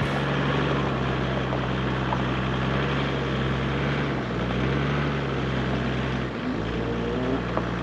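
Toyota Land Cruiser HDJ100's 4.2-litre straight-six turbo-diesel running steadily as the truck crawls over a loose-rock mountain track; the engine note drops about six seconds in.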